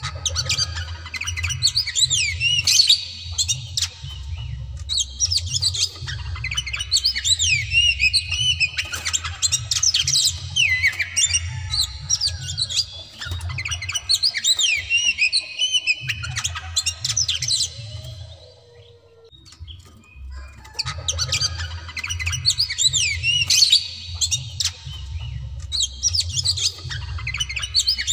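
Oriental magpie-robin (white-bellied kacer) singing loudly in long runs of quick high whistles, slurred glides and squawky notes. It goes quiet for a few seconds past the middle, then starts again.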